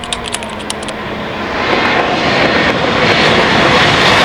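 Haas VF-23 Formula 1 car's 1.6-litre turbocharged V6 coming up the track. Its engine noise builds to a loud, steady rush from about one and a half seconds in.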